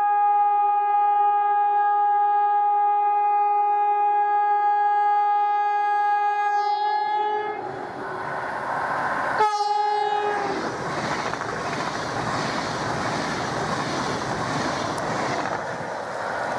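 Allegro high-speed electric train sounding its horn as it approaches: one long, steady blast of about eight seconds, then a short second blast. After that comes the loud rushing of the train passing through the station.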